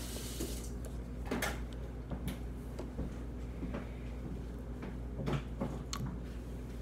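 Faint scattered sticky clicks and small taps of homemade slime being stretched and worked by hand over a plastic mixing bowl while contact-solution activator is added, over a low steady hum.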